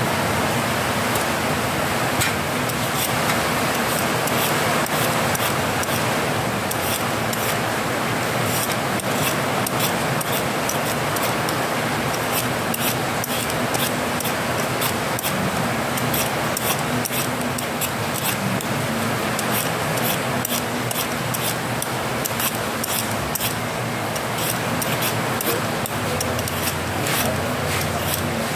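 Handheld vegetable peeler scraping the skin off a green papaya in many short, quick strokes, over a steady hiss of heavy rain.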